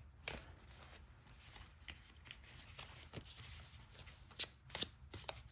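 Tarot cards being shuffled by hand: soft, irregular flicks and taps of card on card, with a few sharper snaps near the end.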